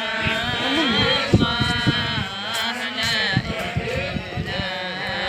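A man's voice chanting in a melodic, drawn-out style, without a break.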